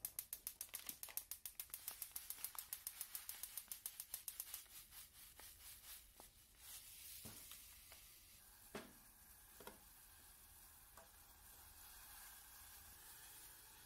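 Gas stove igniter clicking rapidly, about eight clicks a second, for several seconds until the burner catches. The flame then runs with a steady soft hiss, with a few light knocks as ingredients go into the aluminium saucepan.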